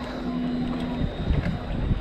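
Wind buffeting the microphone, with a steady low hum that cuts off about a second in; the buffeting grows stronger after that.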